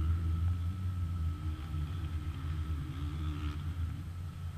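Steady low rumble, with a fainter drone wavering up and down in pitch over it.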